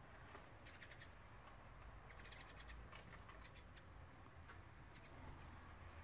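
Eurasian siskin picking at alder cones with its bill: faint, quick ticks in short clusters over a low room hum.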